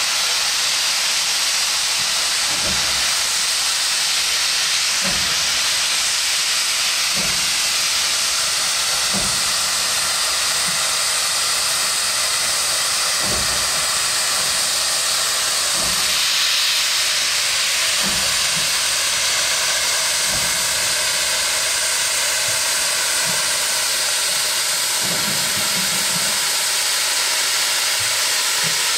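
Steam locomotive hissing loudly and steadily, with soft low thumps every couple of seconds.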